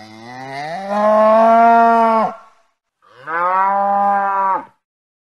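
A cow mooing twice: a long moo that rises in pitch and then holds, and a second, shorter moo about three seconds in.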